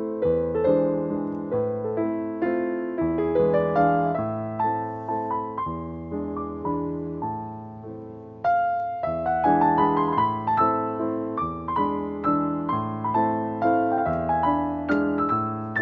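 Background piano music: a gentle melody of single notes over sustained chords, dying away around eight seconds in before a louder phrase begins.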